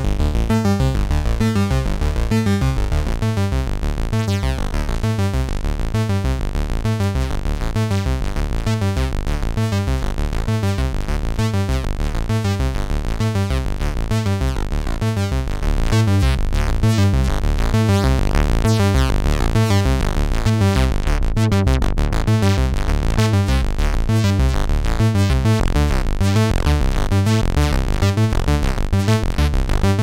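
Ad-vantage 03m DIY analog synthesizer playing a fast, bass-heavy repeating pattern of notes. About halfway through it gets a little louder and brighter as patch cables are re-routed, and rising glides sound above the pattern.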